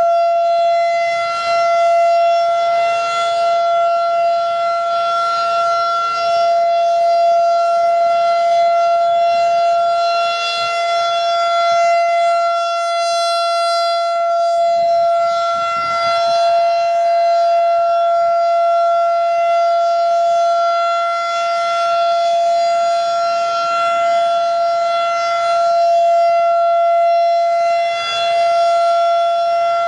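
Federal Signal 2001 outdoor warning siren sounding its test signal: one loud, steady tone that holds its pitch while its loudness swells and dips slightly.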